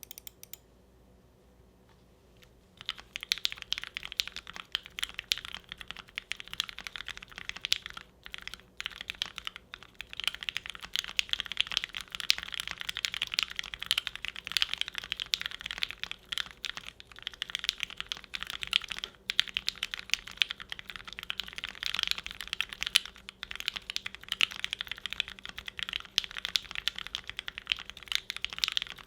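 Typing on a custom 60% mechanical keyboard (Bakeneko, gummy o-ring mount, FR4 plate) with lubed Gateron Ink Black V1 linear switches and GMK keycaps: rapid, continuous keystrokes with a fair amount of clack. The typing starts about two and a half seconds in and pauses briefly a couple of times.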